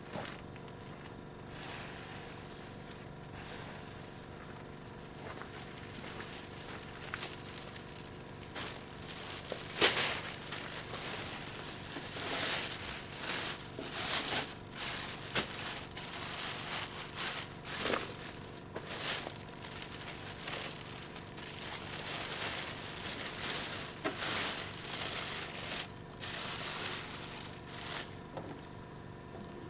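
Ash being cleared out from beneath a wood-gas generator: irregular scraping and rustling with scattered knocks, the loudest a sharp knock about ten seconds in.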